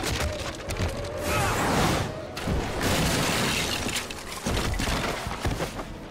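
Fight-scene sound effects: several loud crashing, shattering impacts, one after another, with music underneath.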